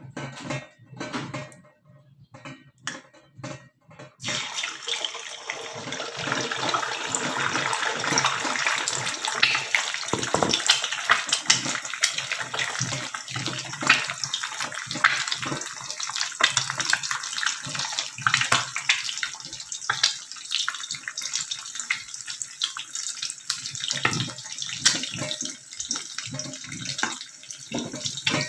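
Water running from a kitchen tap into a sink with light clatter, starting about four seconds in and continuing steadily.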